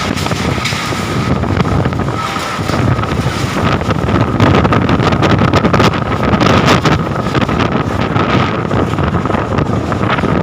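Loud wind buffeting the microphone in irregular gusts, over a steady high whine.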